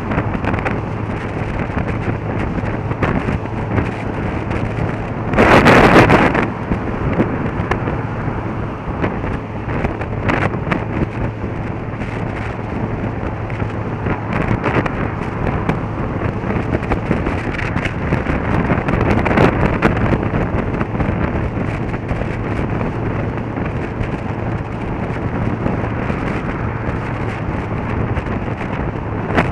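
Motorcycle on the move: steady wind rush on the camera over a constant engine drone. About six seconds in comes a loud whoosh lasting about a second.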